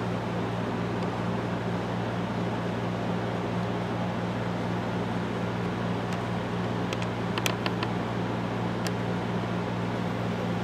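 A steady mechanical hum with an even hiss, as from a running electric motor or fan, with a few light clicks between about six and nine seconds in.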